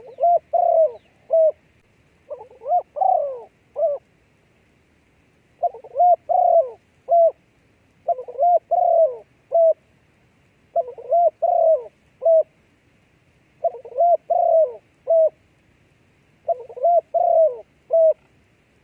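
A dove cooing: a phrase of several short coos and one longer drawn coo, repeated seven times at a steady pace with short pauses between.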